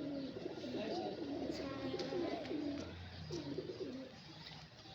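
Pigeons cooing, several overlapping throaty coos that die down about four seconds in, with a few faint clicks.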